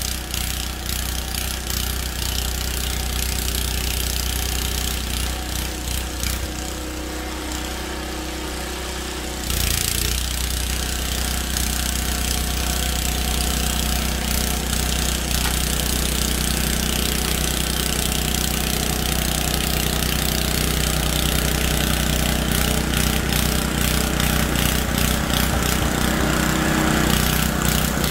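The engine of a 1970s Ariens snow blower running steadily while clearing snow, getting louder about ten seconds in.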